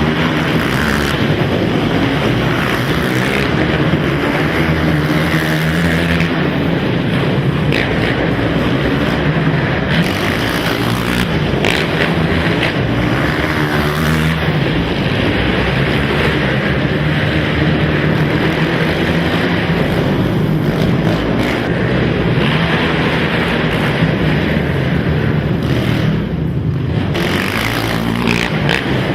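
Several racing quad (ATV) engines running hard together, revving up and dropping off again and again as the riders accelerate and back off around the indoor track.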